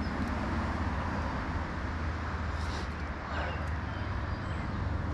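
Steady low rushing background noise of a creek, with a couple of faint high chirps near the middle.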